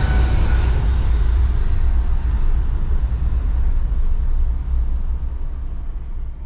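Boeing 777-300ER's GE90 jet engines at takeoff thrust as the airliner climbs away: a deep rumble that fades, its higher hiss dying out first and the whole sound dropping off near the end.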